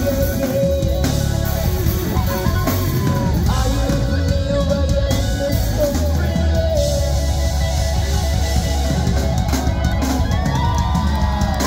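Live rock band playing loud: distorted electric guitars, bass guitar, keyboards and a drum kit, with bending guitar notes.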